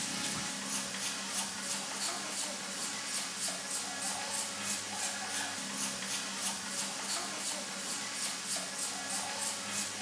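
Sandpaper rubbed back and forth by hand over a smooth wooden car body panel, in even strokes about three a second.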